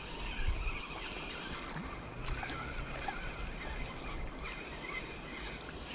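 A small hooked chub splashing at the water's surface as it is reeled in on a spinning rod, over a steady low rumble.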